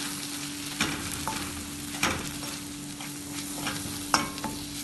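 Steel spoon stirring and scraping spice powders through a tomato masala in a stainless-steel kadai over a low flame, with a light sizzle of ghee. The spoon clinks sharply against the pan a few times. The spices are being sautéed until their raw smell cooks off. A steady low hum runs underneath.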